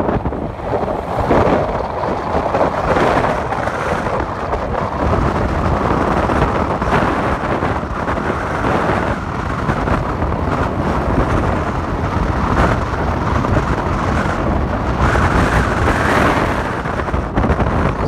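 Wind buffeting the microphone over the low rumble of a moving vehicle on the road, with louder gusts now and then.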